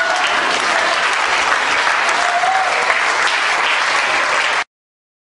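Crowd of dancers applauding after a folk dance tune, with a voice or two calling out among the clapping. The sound cuts off abruptly near the end.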